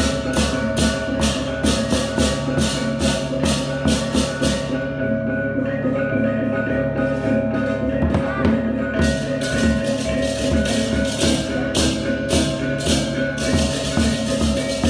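Balinese baleganjur gamelan playing: ringing gongs and bronze kettle tones over drums, with crashing hand cymbals in a fast even pulse. The cymbals drop out for about four seconds midway, then come back in.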